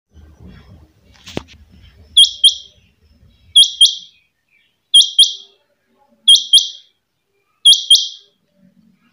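Caged quail calling: five calls, each two sharp high notes in quick succession, repeated about every second and a half. A single light knock sounds just before the calls begin.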